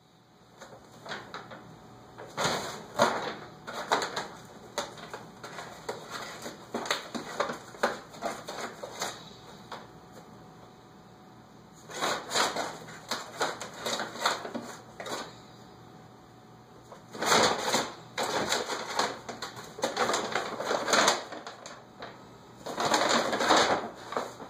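Large paper shopping bag rustling and crackling in irregular bursts as a kitten moves around inside it, with quieter pauses between the bouts of movement.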